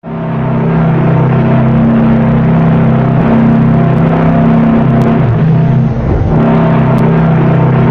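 The RMS Aquitania's deep ship's whistle sounding one long, steady blast, a low chord of several tones. About six seconds in it wavers and dips briefly before holding again.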